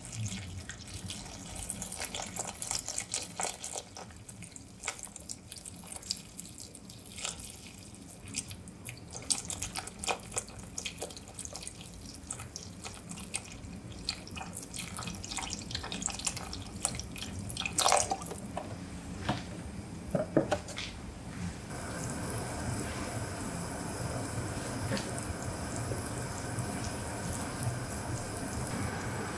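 Chicken stock poured in a thin stream into a glass pot of chopped cauliflower and potato, trickling and splashing as the pot fills, with two louder clunks about two thirds of the way through. Near the end the splashing gives way to a steady hiss.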